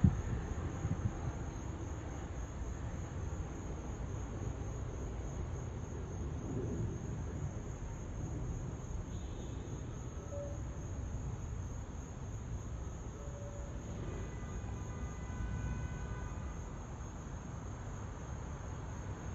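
A steady, pulsing high-pitched drone of insects chirping, over a constant low rumble.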